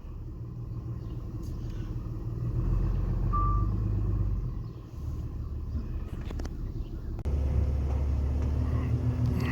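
Tow vehicle's engine running at low speed while pulling a trailer, a steady low rumble, with one short beep about three seconds in. About seven seconds in the rumble steps up abruptly, louder and deeper.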